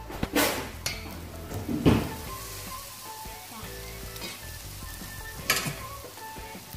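Battered banana pieces (pisang goreng) sizzling as they deep-fry in hot oil in a stainless steel pan, while being stirred and turned. Three sharp clinks of utensils cut through the sizzle, about half a second, two seconds and five and a half seconds in.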